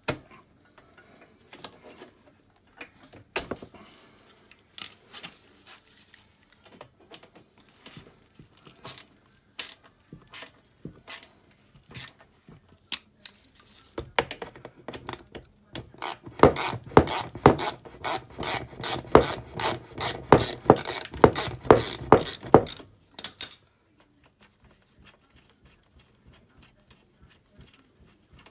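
Socket ratchet wrench working the bolts of an ATV's foot brake master cylinder: scattered clicks and tool taps at first, then a louder run of quick, even ratchet clicks for about seven seconds past the middle that stops suddenly.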